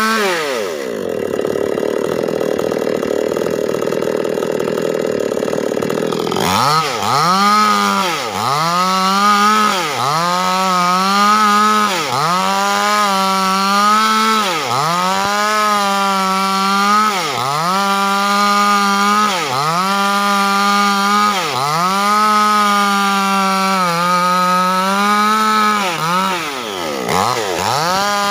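Proquip mini petrol chainsaw cutting lengthwise through a large timber beam. For the first six seconds or so it is a steady, noisy sawing sound. Then the engine runs at high revs, its pitch dropping and climbing back about every second and a half as the revs fall and recover.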